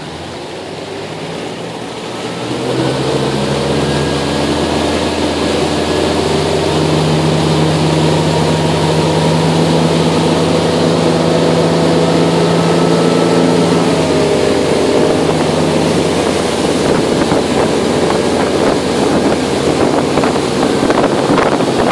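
Motorboat engine running steadily as the boat gets under way. It gets louder about two seconds in, with rushing water and wind alongside. Later the engine hum sinks under the rush of water and wind, and wind buffets the microphone near the end.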